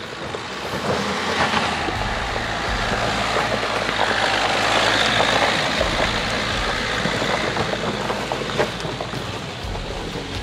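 A Dacia Duster on rear snow chains driving slowly past up a stony track, its engine pulling under load while the chains and tyres crunch and clatter over gravel and rocks. The rattle builds as the car comes close, is loudest in the middle, and eases off as it moves away.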